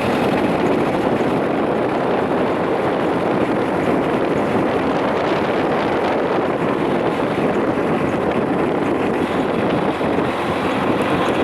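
Steady rush of wind buffeting the microphone on a boat under way on the river, with the boat's own running noise blended in; no clear engine note stands out.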